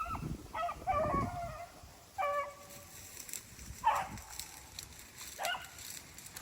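Rabbit hounds giving tongue on a rabbit's trail: about five short, scattered, pitched bays.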